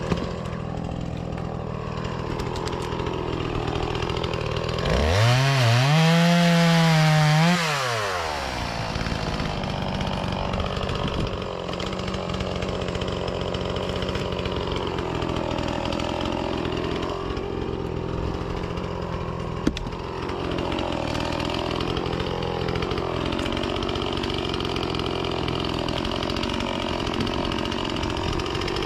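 Two-stroke chainsaw running: it idles, revs up sharply for a few seconds, then settles into a lower, wavering note as the chain cuts through fruit-tree firewood under load.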